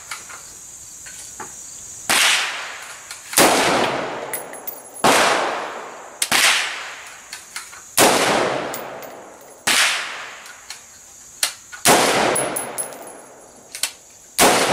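Semi-automatic AR-15 rifle in .223/5.56 firing single shots at a steel plate: about eight sharp reports spaced one to two seconds apart, each trailing off in a ringing echo.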